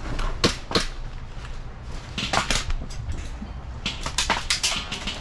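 Airsoft guns firing: two sharp single shots early on, two more about halfway through, then a quick string of shots from about four seconds in, over a steady low rumble.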